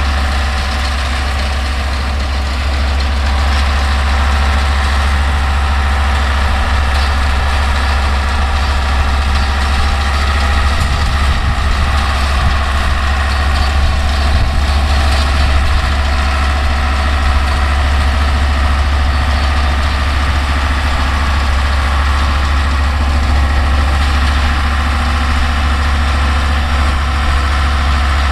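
Older Deutz tractor's diesel engine running steadily under load while powering a New Holland round baler through hay, with no breaks in the sound.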